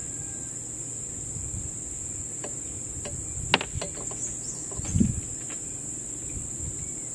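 Steady high-pitched chorus of insects. A few sharp clicks come about three and a half seconds in, and a short dull thump, the loudest sound, about five seconds in.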